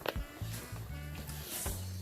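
Background music with a drum beat over a stepping bass line.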